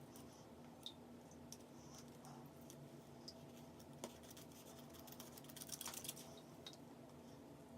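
Faint snips and small clicks of scissors cutting the lace of a lace frontal wig, with a quicker cluster of snips about six seconds in, over a low steady hum.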